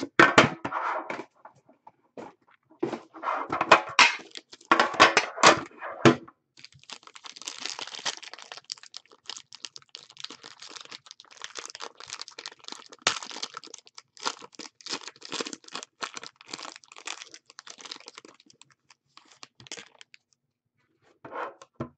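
Foil wrapper of an Upper Deck Premier hockey card pack crinkling and tearing as it is opened by hand. A few louder, sharper rustles and knocks come in the first six seconds, followed by a long run of dense crinkling that stops near the end.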